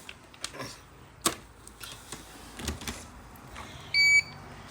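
Robot vacuum handled with a few sharp clicks and knocks, then a single short electronic beep from the robot about four seconds in.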